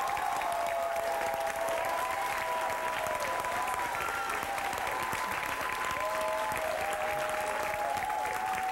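Studio audience applauding steadily, with long held cheers and whoops that trail off in pitch over the clapping.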